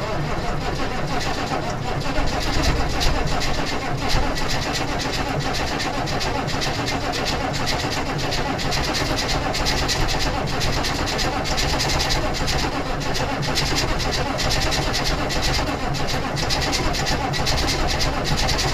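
1996 Chevy K1500's 6.5-litre turbo diesel V8 catching on a hard cold start and running with a loud diesel clatter through a straight-piped exhaust. It is slow to start because the glow plugs are bad. It is a little uneven in the first few seconds, then runs steadily.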